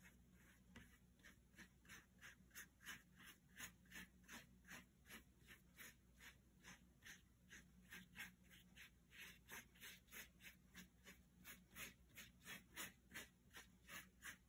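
Paintbrush scrubbing watercolour back and forth on paper: faint, even strokes, about three a second.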